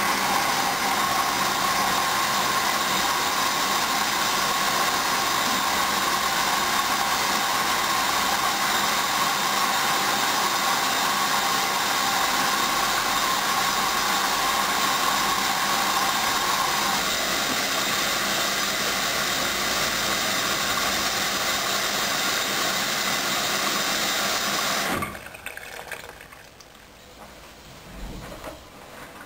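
Hoover Dynamic Next DYN10124DP washing machine drawing in water through its inlet valve during the main wash: a loud, steady rush of water that starts suddenly and cuts off sharply after about 25 seconds as the valve closes, followed by faint ticking.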